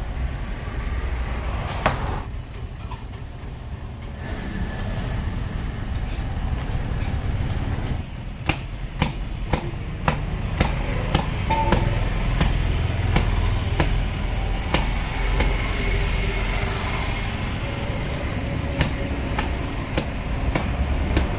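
Parotta dough being worked by hand on a greased counter. From about eight seconds in comes a quick, uneven series of sharp slaps, about two a second, as the dough is beaten and spread out. A steady low rumble runs underneath.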